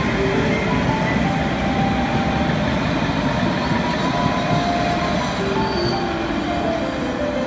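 London Underground S-stock train running past the platform, a steady rumble of wheels on the rails that eases slightly near the end.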